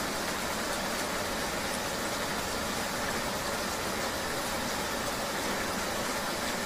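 Steady rain ambience with a vehicle engine running underneath, an even wash of noise.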